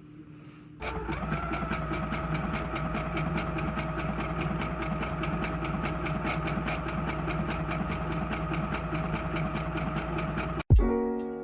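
A small motor starts about a second in and runs steadily, with a whine that rises briefly and then holds, and a fast, even ticking. It cuts off near the end, and piano music comes in.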